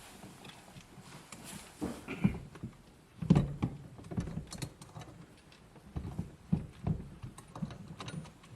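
Irregular knocks, clicks and clunks of a bucket seat and its mounting hardware being handled and fitted into a car, the loudest knock about three seconds in.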